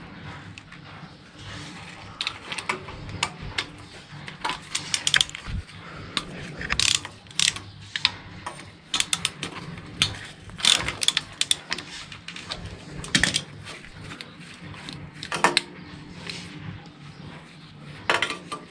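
Ratchet wrench clicking in short, irregular runs as bolts are undone, with scattered sharp metal clinks.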